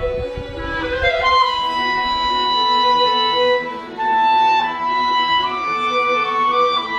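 A string quartet of violins, viola and cello playing slow, sustained bowed notes, a high held melody line over held chords that change every second or two. A low rumble sits under the music for about the first second and a half.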